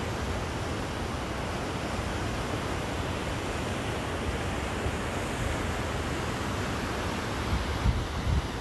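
Steady rushing of the Grand Falls waterfall and rapids on the Exploits River. Wind buffets the microphone in a few low gusts near the end.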